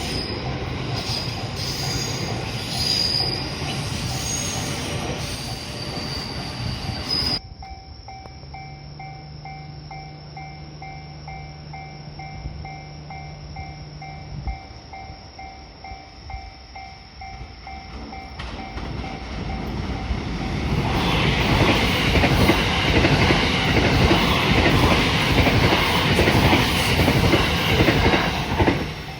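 Electric trains on the JR Kyoto Line passing over a level crossing, with a high wheel squeal on the first train; its sound cuts off suddenly about seven seconds in. The level-crossing warning bell keeps ringing in a steady repeating pattern. Another train then comes up loudly about twenty seconds in and passes.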